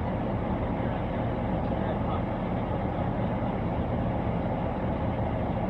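Steady idling hum and cabin noise of the parked patrol car, heard from inside the car, with faint muffled voices from outside.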